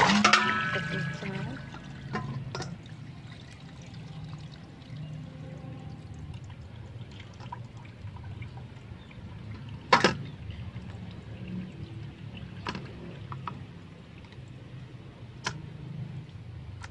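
Water poured into a steel basin at the start, then raw pig-head skin being rinsed and handled in the water. A few sharp knocks, the loudest about ten seconds in.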